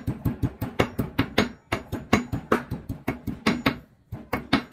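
A cleaver chopping rapidly on a wooden stump chopping block, mincing ginger: quick even knocks at about six a second, pausing briefly twice.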